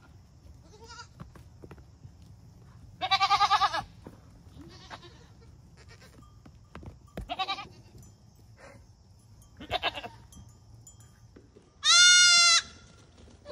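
Goats bleating: about five separate wavering bleats a couple of seconds apart, the last, near the end, the loudest.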